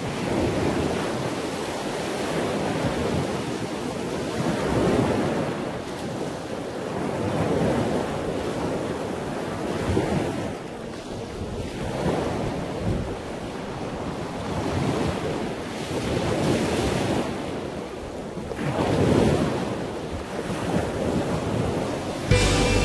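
Coastal wind rushing over the microphone together with surf, swelling and easing every few seconds. Music cuts in at the very end.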